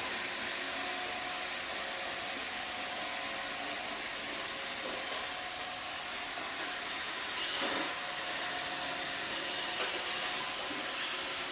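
Robot floor cleaner running with a steady whirring hiss. A brief knock comes about two-thirds of the way through.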